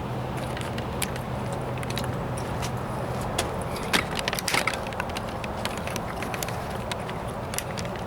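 Handling noise: scattered irregular clicks and knocks over a steady background noise, with a low hum that stops about three and a half seconds in.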